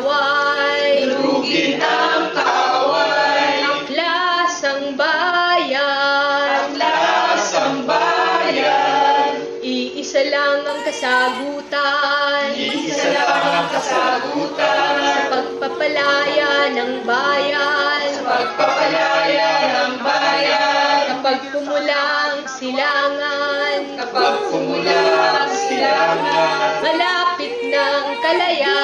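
A woman singing with other voices joining in, the voices unaccompanied by any clear instrument. A steady low held tone runs beneath for long stretches.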